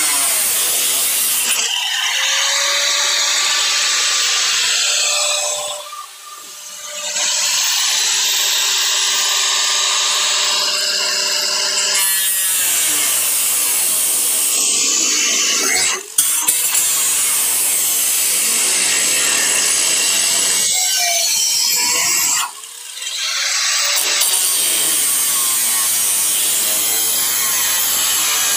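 Handheld angle grinder cutting through the rusty sheet-steel quarter panel of a 1957 Chevrolet: a loud, steady grinding hiss with a faint motor whine under it. The sound dips briefly about six seconds in and again around twenty-three seconds.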